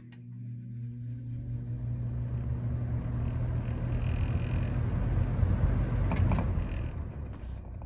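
1993–94 Galaxy box fan starting up on medium speed: a motor hum with the air rush building as the blades spin up. About six seconds in there are a few clicks, and the sound then fades steadily as the blades begin to coast down.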